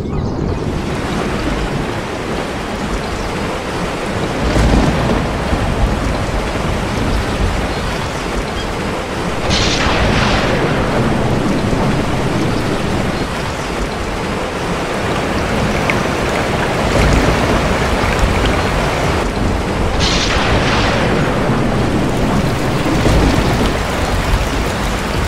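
Thunderstorm: steady rain with thunder rolling and breaking several times, the sharpest cracks about ten and twenty seconds in.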